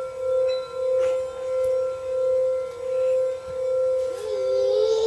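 A crystal singing bowl and a metal singing bowl rubbed around their rims, sounding together as one steady sustained ringing tone with a softer higher tone above it, swelling and fading about once a second. Near the end a second wavering tone slides in just below and above the main one.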